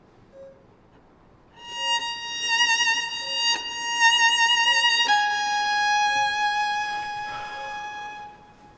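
Solo violin playing slow dramatic score music: one long note with vibrato, then a lower long note a little past the middle, fading out near the end. Faint short beeps repeat steadily underneath, about one every second and a quarter.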